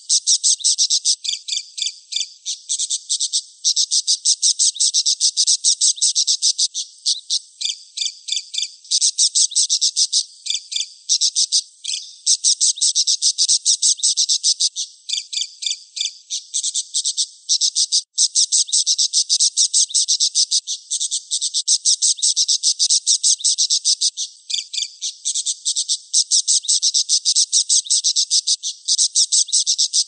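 Budgerigar chatter: a loud, near-continuous stream of very rapid, high chirps, broken by short pauses every few seconds.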